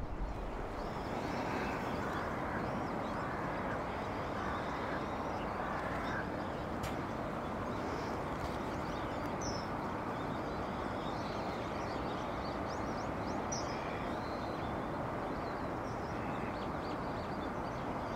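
Eastern spot-billed ducks quacking now and then over a steady background hiss.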